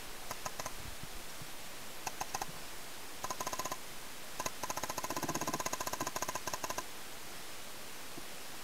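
Paintball markers firing in rapid bursts of shots: four strings of quick popping clicks, the longest lasting about two seconds around halfway through.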